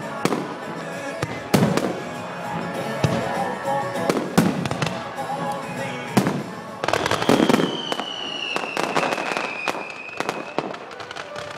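Fireworks shells bursting one after another about every second and a half over recorded music, with a dense patch of crackling about seven seconds in and a long, slowly falling whistle after it.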